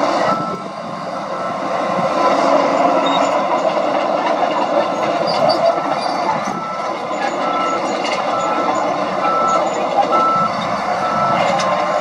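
Heavy diesel earthmoving machinery running: a crawler bulldozer and dump trucks working. Over it a reversing alarm beeps evenly, about three beeps every two seconds, stopping near the end.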